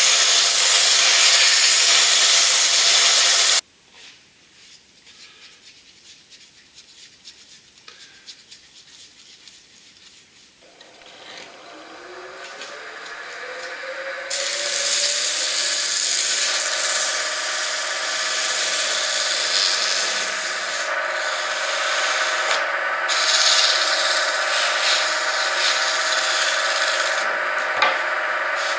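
A spinning epoxy-resin and holly bowl on a wood lathe being power-sanded with a hand-held rotary sanding disc, loud and steady, cutting off suddenly a few seconds in. After a few quiet seconds the lathe motor spins up with a rising whine, then runs steadily while wet sanding of the epoxy with fine grit resumes.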